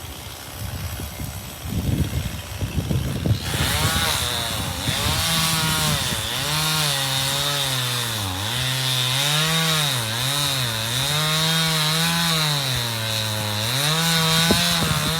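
Irregular knocking and rustling, then about three and a half seconds in a chainsaw comes in loud while cutting ash wood. Its engine pitch rises and falls again and again as it works, over a steady high whine.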